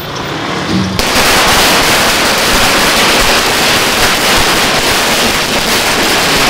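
A long string of firecrackers going off in a rapid, continuous crackle, starting suddenly about a second in.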